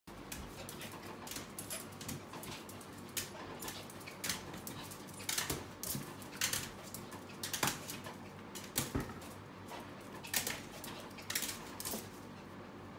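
Maltese dog jumping up at a fridge door: irregular sharp knocks and clicks of paws and claws striking the fridge and the wooden floor, stopping near the end.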